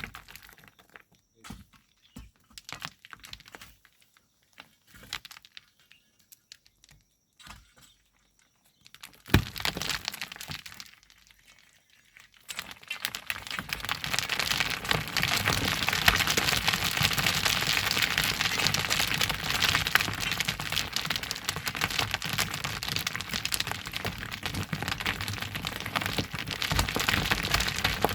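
Scattered knocks and clicks, a loud thump about nine seconds in, then from about twelve seconds a steady, dense crackling rush of loose volcanic sand and gravel pouring and sliding.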